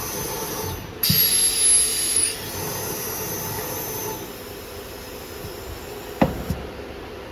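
Machine running with a steady hiss, a louder burst with a high whine about a second in, and a sharp knock near the end.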